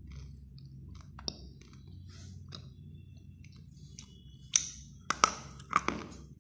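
Dry grey clay being bitten and crunched: a faint click about a second in, then a quick run of sharp, loud cracks from about four and a half seconds in.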